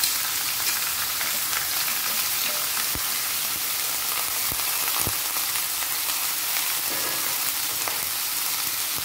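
Freshly added chopped potatoes sizzling in hot oil in a frying pan while being stirred with a metal spatula, with a few sharp clicks of the spatula against the pan.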